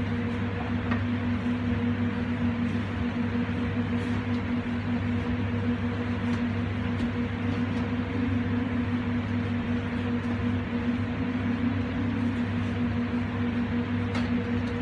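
Steady mechanical hum with an even rushing of air from commercial kitchen equipment, unchanging throughout.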